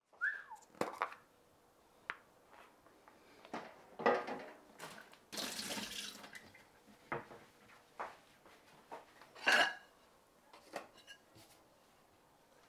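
Kitchen sounds: scattered clinks and knocks of dishes and utensils, with a tap running briefly about five seconds in.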